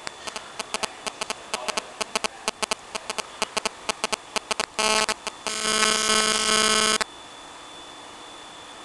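A rapid, irregular run of sharp clicks lasting about four seconds, then a short buzz and a louder steady electric buzz of about a second and a half that cuts off abruptly.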